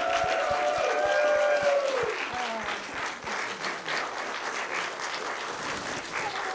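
Theatre audience applauding, dense clapping that eases off a little after about two seconds. A long, arching voice call sounds over the clapping in the first two seconds.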